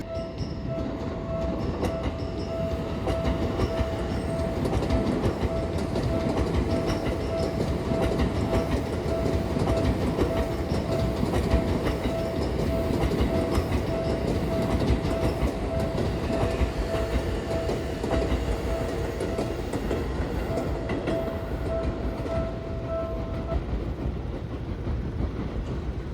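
A Japanese railroad crossing's warning bell rings its repeating "kan-kan" tone while a train passes over the crossing, wheels clattering on the rail joints. The bell stops a few seconds before the end.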